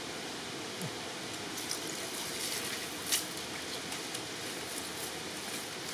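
Shallow stream running steadily, with a few light clicks and wet squelches from hands working through a wet cast net to pick out the catch; the sharpest click comes a little past three seconds in.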